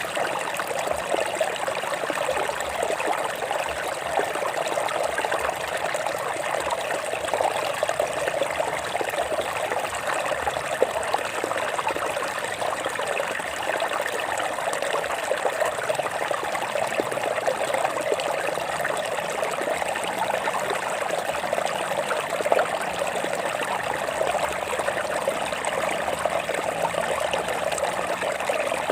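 Stream water running and trickling over rocks, a steady rush with fine bubbling flicker that does not let up.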